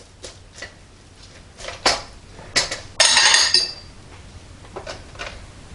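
Plastic spatula scraping and knocking in a foil-lined NuWave Oven pan as a slice of meatloaf is cut and lifted out: a series of light clicks and taps, with a longer, louder crinkling scrape about three seconds in.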